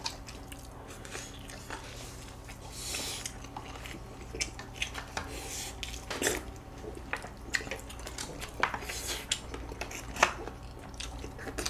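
Close-miked chewing, biting and mouth sounds of two people eating, with scattered sharp clicks of chopsticks against the food containers.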